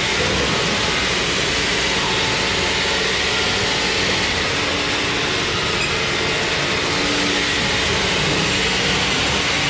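Sawmill machinery running steadily with a loud, even, noisy din and a faint underlying hum.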